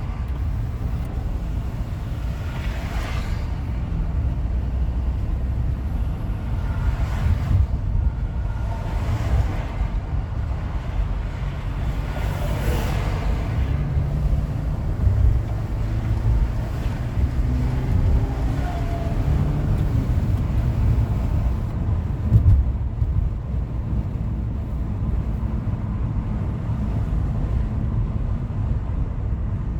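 Car travelling at freeway speed: a steady low road and tyre rumble, with a few brief swishing swells as other vehicles go by.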